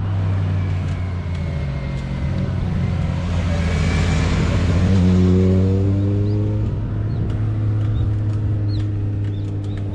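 Motor vehicle engine noise on a road: a steady low engine drone throughout, with a motorcycle passing about halfway through as the sound swells and a second engine note rises briefly.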